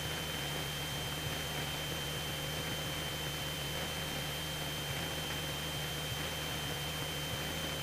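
Cessna 172SP's four-cylinder Lycoming engine droning steadily under an even hiss, with a faint steady high-pitched tone.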